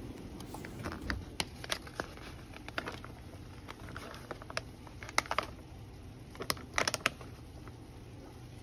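Scattered light clicks and crinkles as a microwavable ready-rice pouch is squeezed and emptied into a plastic bowl, with the rice dropping onto the rice already in it.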